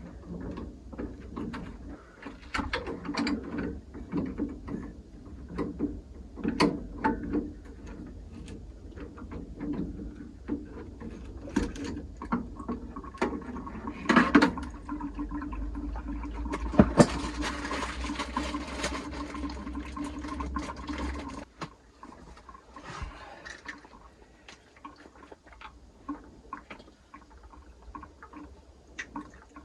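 Water draining from a combi boiler through a hose into a folding bucket, with repeated clicks and knocks of hand work on the boiler. The rush of water stops abruptly about two-thirds of the way in, leaving only scattered clicks.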